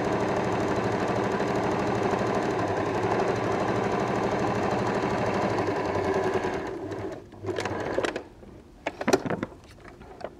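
Electric domestic sewing machine stitching at a steady speed along a folded fabric edge, then stopping about six and a half seconds in. A few short rustles and clicks follow as the fabric is handled.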